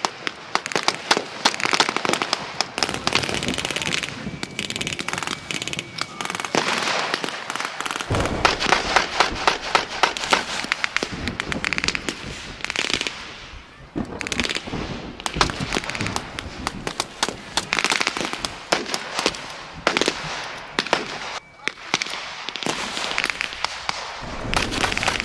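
Rifles firing blanks in a re-enacted battle: many shots, near and far, crackling in rapid, irregular succession with no letup.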